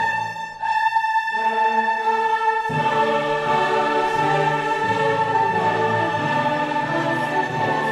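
Background music in an orchestral style with choir-like voices, on long held notes; the lower parts drop out briefly and come back fuller a little under three seconds in.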